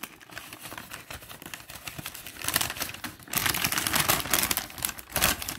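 Paper takeaway bag and wrapper rustling and crinkling as the food is lifted out, a dense crackle of paper that gets louder and busier about three seconds in.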